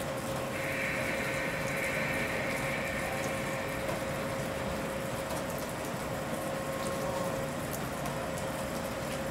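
JNR 381 series electric train standing at the platform, its onboard equipment giving a steady electrical hum. A hiss comes in about half a second in and fades out after about three seconds.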